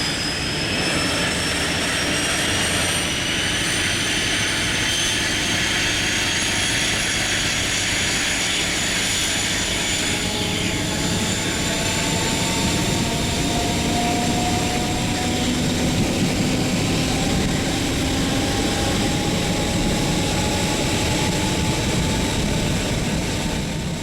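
Class 43 HST power car's diesel engine working hard as the train accelerates away, a loud steady roar with a high whistle and lower whines climbing slowly in pitch as it gathers speed.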